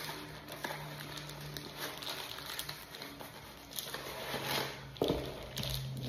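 Crinkling and rustling of plastic packaging as a door closer arm assembly is unwrapped by hand, irregular throughout with a louder rustle about five seconds in.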